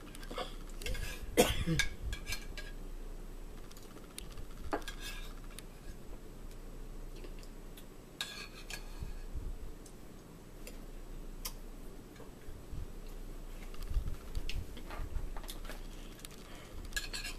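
Spoons clinking and scraping against plastic soup bowls during eating, in scattered light clicks with a few louder knocks about fourteen seconds in.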